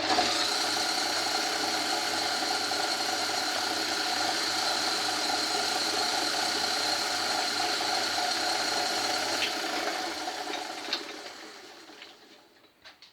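Old Myford lathe running, its motor and headstock gearing giving a steady mechanical whine with a rattle. It is switched on at the start and winds down over the last few seconds.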